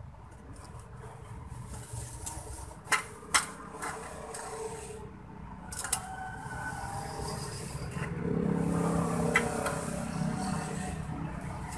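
Metal knocks and scrapes as a copper-wound motor stator is worked into a finned aluminium motor housing, with two sharp clinks about three seconds in. A low droning hum in the background grows louder about eight seconds in.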